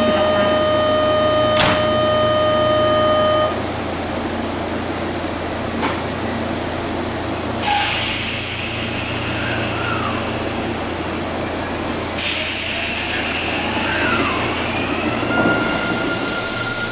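Kintetsu electric train standing at the platform with a constant low electric hum, and a steady buzzer tone for the first few seconds. Two sudden hisses of released compressed air come about eight and twelve seconds in. Near the end the traction motors start a rising whine as the train pulls away.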